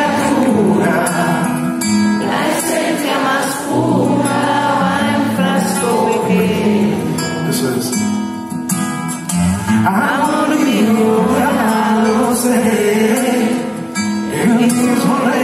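Live song from a male singer with the audience singing along in chorus, heard from among the seats of a large concert hall.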